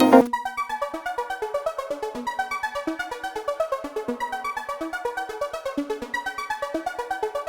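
Background music: a quick, even run of short synthesizer or electric-piano notes, about seven or eight a second, at several pitches.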